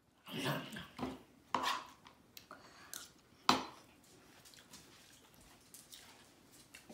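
A few sharp clinks and knocks of a metal spoon against a ceramic bowl, mostly in the first four seconds.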